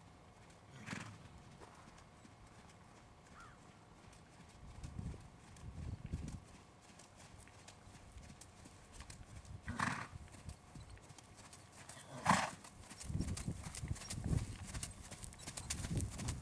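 Hoofbeats of a young Holsteiner/Thoroughbred mare trotting on arena sand, dull low thuds that come thicker and louder in the last few seconds. Three brief sharp bursts of noise stand out, about one, ten and twelve seconds in, the last the loudest.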